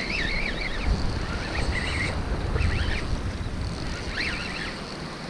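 Wind buffeting the microphone over the wash of surf, with a bird calling several times in short, rising-and-falling notes.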